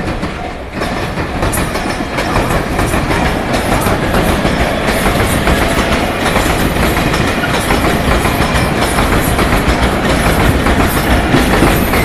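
Electric trains passing close by, an E351-series limited express and a 115-series commuter train, their wheels and running gear running on the rails. The sound builds over the first second and then stays loud and steady.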